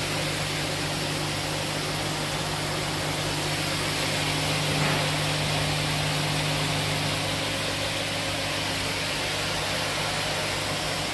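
DMG Mori NLX2000SY CNC turning center running with its spindle turning: a steady machine hum with a few held low tones over a haze of noise. The strongest low tone weakens a little about seven seconds in.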